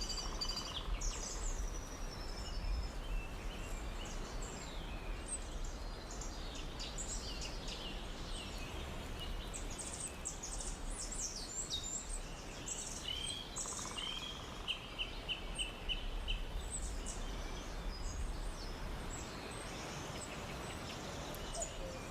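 Forest birds chirping and calling over a steady low background hiss, with many short high notes. About 13 seconds in, one bird gives a quick run of about six repeated notes.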